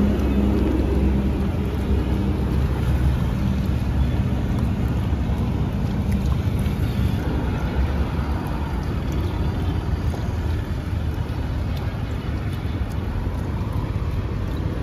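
Steady road and engine rumble of a moving car, with a low engine hum that fades after the first few seconds.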